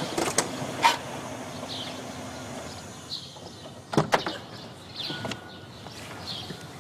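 A car's driver's door latch clicks open sharply about four seconds in, after a few lighter clicks near the start. Faint bird chirps repeat throughout.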